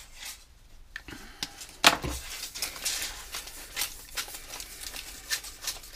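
Scattered light clicks and taps from handling a tape measure and marker pen on a workbench, with one sharper click about two seconds in.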